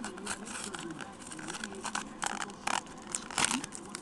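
Foil wrapper of a trading-card pack crinkling and tearing as it is pulled open by hand: irregular sharp crackles, the loudest a little after two seconds in and again past three seconds.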